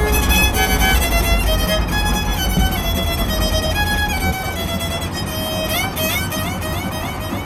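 Music led by a violin playing a melody of held notes, with sliding notes near the end. A low rumble sits underneath and drops away about four seconds in.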